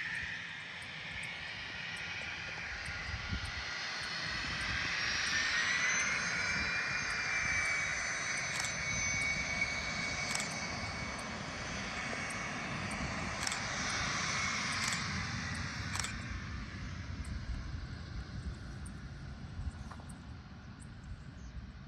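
Embraer Phenom 300's twin turbofan engines at takeoff power as the jet lifts off and climbs away: a steady jet roar with a high whine that rises in pitch about five seconds in, loudest in the middle, then slowly fading.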